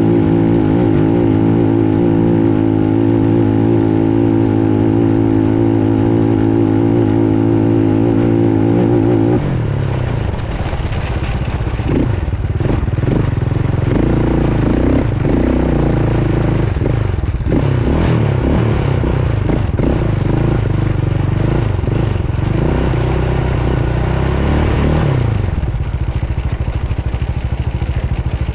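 Off-road vehicle's engine under way. It holds a steady pitch at constant throttle for the first nine seconds or so, then drops back. After that the revs rise and fall again and again while the machine rattles and knocks over rough sand, and the engine settles lower near the end.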